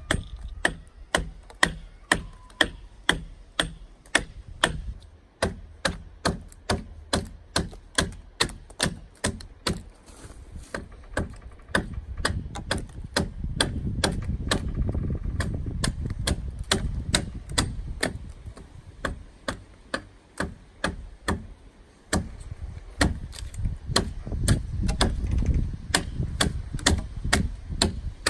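Steel-bladed hand adze chopping into the cedar hull of a dugout canoe, with steady, rhythmic strikes about two to three a second, each a sharp chock of blade biting wood. A low rumble sits underneath in some stretches.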